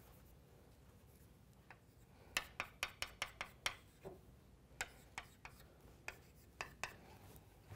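Chalk striking and scraping on a blackboard as lines of a diagram are drawn: a quick run of about seven sharp taps starting a little over two seconds in, then a handful of more spaced taps.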